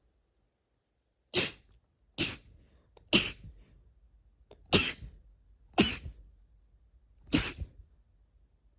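Six short, sharp sneezes in a row, spaced about one to one and a half seconds apart.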